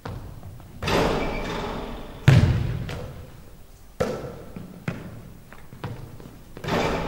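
A basketball thudding on a hardwood court and striking the rim during shooting practice, about six impacts, each echoing around the large empty gym; the heaviest thud comes a little over two seconds in.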